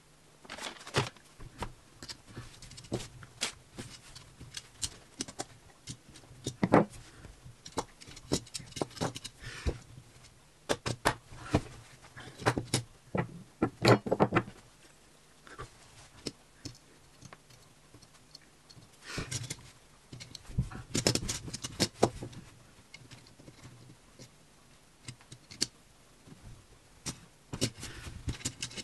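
Small plastic LEGO pieces clicking and tapping against each other and the table as a small train model is put together: irregular sharp clicks, busier about halfway through and again about two-thirds of the way in.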